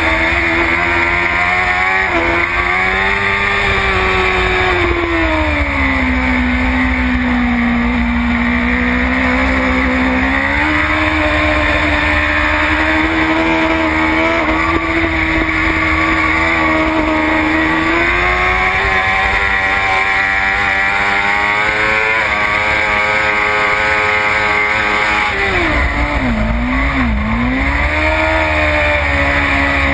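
BMW S1000RR superstock racer's inline-four engine running hard at high revs, close to the machine; its pitch climbs and drops with throttle and gear changes, with a quick dip and throttle blips about three-quarters of the way through as the bike slows for a corner.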